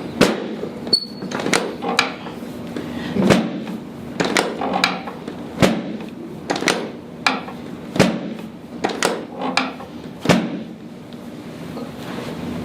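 A run of sharp clicks and knocks, irregular, about one every half second to a second, from a patient being worked on on a chiropractic treatment table. A faint steady hum lies underneath.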